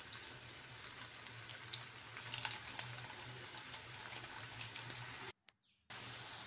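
Chicken mince balls shallow-frying in hot oil: a faint, steady sizzle with scattered small crackles and pops, over a low steady hum. The sound cuts out for about half a second near the end.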